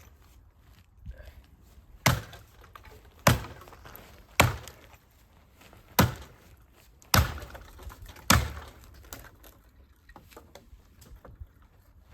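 Gransfors Bruks Small Forest axe chopping and splitting dead wood: six sharp chops, about one every second or so, each with a short woody ring.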